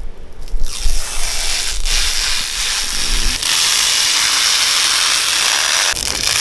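Cooling fans of a newly built desktop PC spinning up at power-on: a rushing hiss that builds over the first few seconds, then runs steady.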